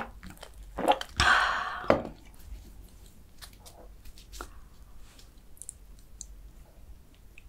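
Iced coffee being gulped from a glass mug, then a longer rushing sound and a sharp knock about two seconds in as the glass is set down. After that, faint crackles and rustles of flaky kouign-amann pastries being picked up and handled.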